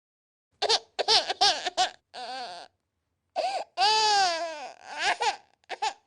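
Infant crying: a run of short, sharp cries, then after a brief pause one long wail that rises and falls, followed by a few more short sobs. The cries start and stop abruptly out of silence.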